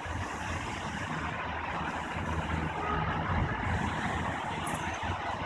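Thunderstorm ambience: a steady hiss with a low, rolling rumble of thunder that swells about three seconds in.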